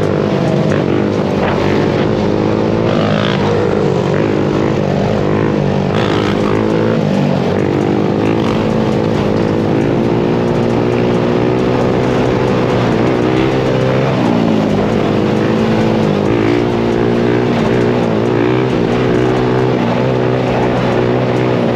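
Sport quad's engine running hard under the rider, its revs rising and falling several times as the throttle is worked and gears are changed.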